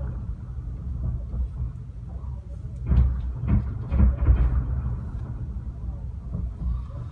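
Fireworks shells bursting at a distance: a constant low rumble with a cluster of deeper booms about three to four and a half seconds in.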